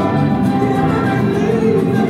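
Loud music from the light show's sound system, with long held notes.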